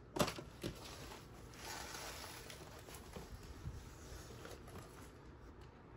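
Faint handling sounds: two light knocks in the first second, then soft rustling and a few small ticks.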